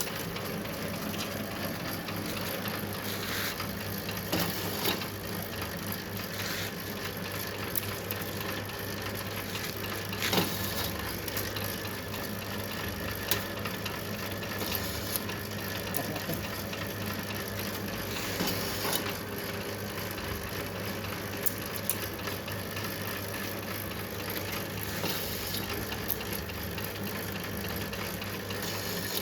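Bamboo skewer planing machine running with a steady motor hum, with occasional sharp clicks and knocks at irregular intervals.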